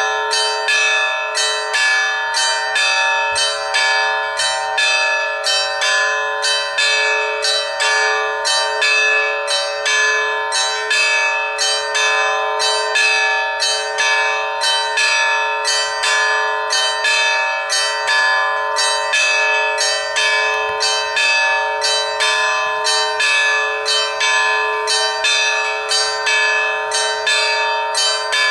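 Russian church bells rung in a continuous peal: several bells struck in a fast, even rhythm, their tones ringing on over one another without a break.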